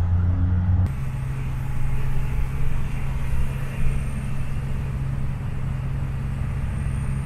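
Steady drone of a minibus engine and road noise heard from inside the passenger cabin while driving. The hum shifts slightly about a second in.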